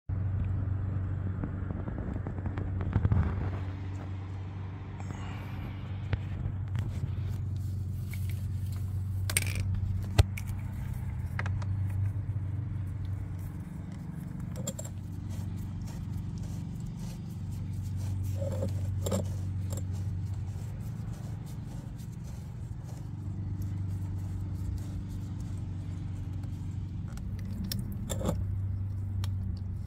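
Metal hose fittings clicking and scraping as a garden hose is handled and screwed onto a pressure washer's water inlet, with a few sharp knocks. A steady low hum runs underneath, swelling and fading.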